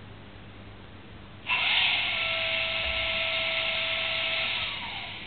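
Onboard sound decoder of a Roco H0 DB class 221 model diesel locomotive playing a hissing, whining sound effect through its small speaker. It starts suddenly about a second and a half in, holds steady, then fades and falls in pitch near the end.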